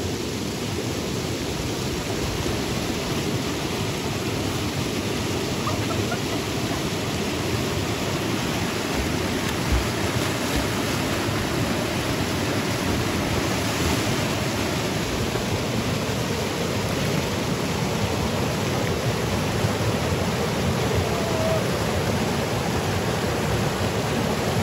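Steady rushing of flowing stream water, an even noise that holds level throughout.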